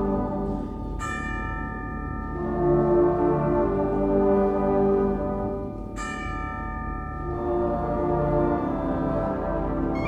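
Wind band holding sustained chords, with tubular bells struck twice, about a second in and again about six seconds in, each strike ringing on and fading.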